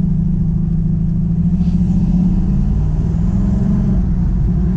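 A 1972 Chevy Nova SS's big-block V8, with headers and a Flowmaster exhaust, running steadily on the road, heard from inside the cabin as a deep rumble. Its pitch rises a little about three seconds in.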